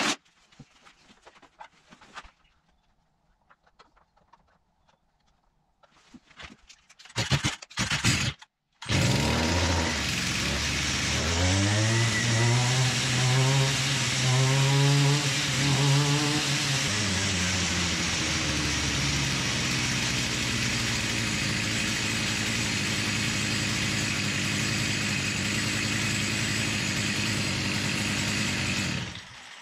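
Stihl FS55 string trimmer's small two-stroke engine starts about nine seconds in, is revved up and down several times, then runs steady until it is shut off near the end. It runs cleanly, its plugged spark arrestor now cleaned out, where before it lost power and would not rev.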